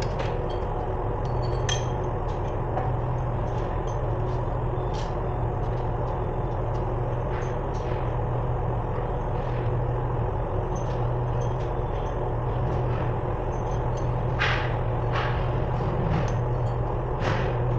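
Steady low mechanical hum of workshop machinery, with scattered sharp clinks and knocks of hand tools on metal as a forklift gearbox is worked on, a few of them close together near the end.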